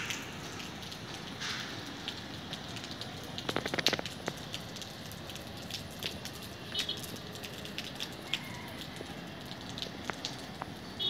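Outdoor ambience: a steady hiss with scattered crackling ticks, a short rattle about four seconds in, and a few brief high chirps.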